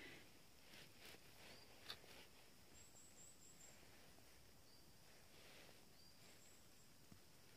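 Near silence: faint rustling of gloved hands picking mushrooms out of moss, with a small click about two seconds in. A few faint, high bird chirps come through, the clearest run about three seconds in.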